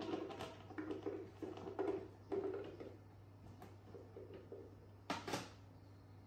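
Small round green fruits tumbling out of a plastic basket onto a ceramic plate, knocking against each other and the dish in short rattling runs, with a couple of sharper knocks about five seconds in.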